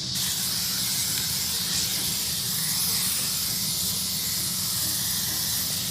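Aerosol spray paint can spraying in one long, steady hiss, marking a spot on the ground.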